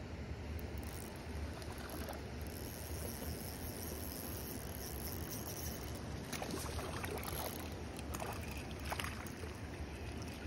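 Steady outdoor wind and water noise with a low rumble, and a few short sharp sounds about six to nine seconds in.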